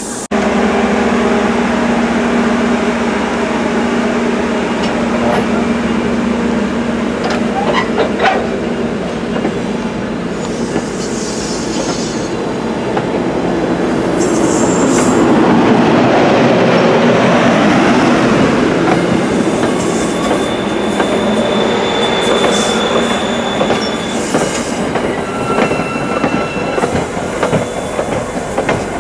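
CapeFLYER passenger train's coaches rolling past close by, a steady loud rumble of wheels on rail that is loudest about halfway through, with a few thin, faint wheel squeals in the second half.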